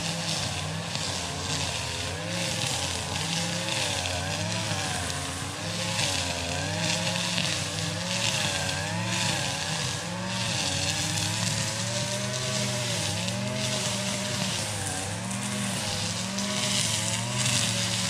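Fishing reel being cranked, its gears whirring in a pitch that rises and falls with each turn of the handle, about one and a half turns a second, while a hooked fish is reeled in.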